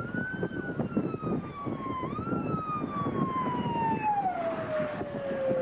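Siren wailing: the pitch sags slowly, swells back up about two seconds in, then winds steadily down over several seconds. It is heard over a low, gusty rumble of wind on the microphone. It is typical of an outdoor tornado warning siren during a tornado.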